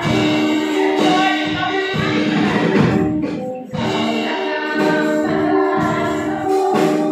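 Church worship singing: congregation and worship team singing together to a live band with drums.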